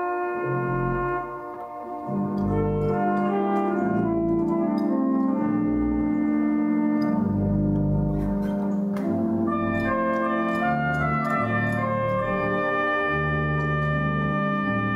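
Organ improvisation: sustained chords on the manuals over a moving bass line played on the pedals, the bass notes changing about once a second. The sound drops briefly about a second in, and from about nine seconds in the upper notes come in brighter and higher.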